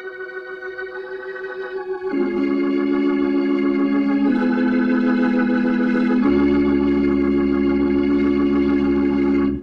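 Music of sustained chords that swells louder about two seconds in and moves through several chord changes. A deep bass note joins past the middle, and the music cuts off near the end.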